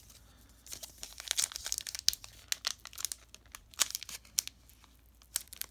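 Foil wrapper of a Pokémon booster pack crinkling in the hands, in irregular bursts of crackles with some light tearing as the next pack is worked open.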